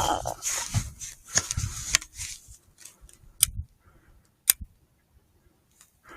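Rustling handling noise over the first couple of seconds, then several separate sharp clicks spaced a second or so apart.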